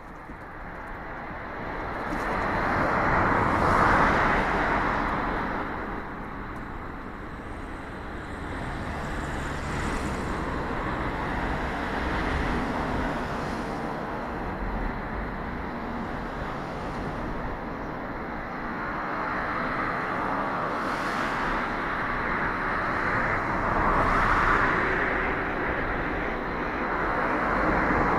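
Road traffic: cars passing one after another, their tyre and engine noise swelling and fading, loudest about four seconds in and again near the end.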